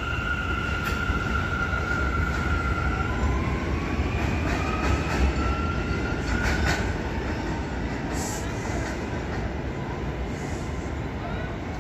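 New York City R179 subway train pulling out and moving away on elevated track: a low rumble of wheels on rail with a high steady squeal at first, then a whine rising in pitch as it picks up speed. A few sharp clicks come about six to seven seconds in, and the sound eases toward the end.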